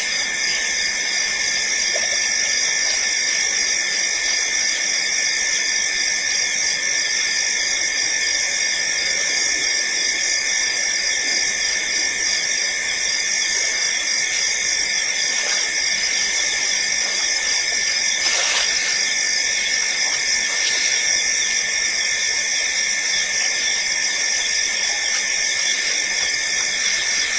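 Dense, steady high-pitched chorus of night insects, shrilling without a break.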